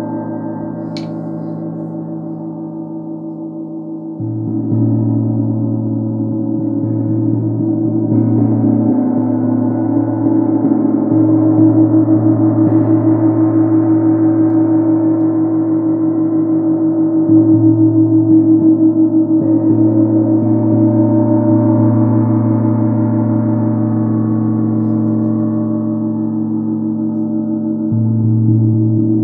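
24-inch chau gong (gold tam tam) pitched at A#2, struck softly with a felt mallet every few seconds; its deep ring builds and sustains with a slow pulsing shimmer, swelling again with each new stroke.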